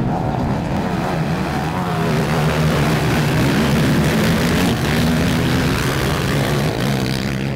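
Several motocross racing quad engines running hard together, a dense buzzing with pitches that waver up and down as the riders work the throttles.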